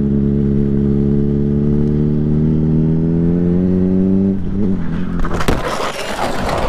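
Suzuki GSR 600 inline-four engine pulling steadily through a bend, its pitch rising slowly, then cutting out about four seconds in as the bike goes down. The motorcycle then slides along the asphalt in a loud scrape with clattering knocks.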